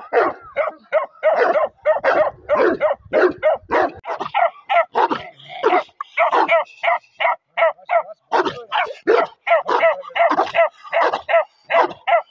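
Bakarwal puppy barking over and over in short, high-pitched yapping barks, about three a second, with only brief pauses.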